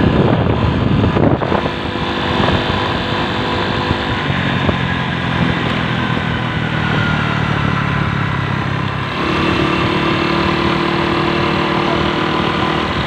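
A vehicle engine running steadily under a constant rushing noise, its note shifting to a new steady pitch about four seconds in and again about nine seconds in.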